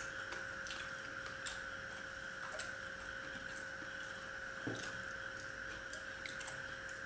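Faint eating sounds: a few scattered soft clicks and taps of fingers and food on plates as two people eat by hand, over a steady background hiss and a thin faint hum.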